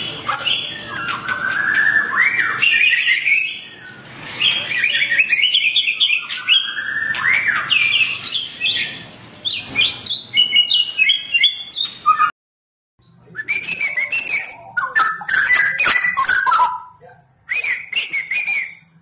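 White-rumped shama (Medan-type murai batu) in full song: a fast, varied run of whistled phrases and rising glides broken by harsh clicking 'cough' notes, the loud singing of a bird that has been provoked into agitation. The song cuts off abruptly about twelve seconds in and resumes a second later.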